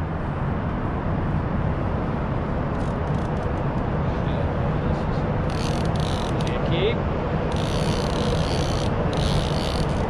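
Steady low rumble of an outboard motor and city traffic, with a fishing reel's drag buzzing twice in the second half, about a second and a half and then about two and a half seconds: a hooked spring Chinook salmon pulling line against the drag.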